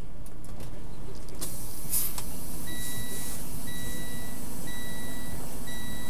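Semi-truck engine idling steadily, with a brief clatter about a second and a half in. From about halfway through, an electronic beep repeats roughly once a second.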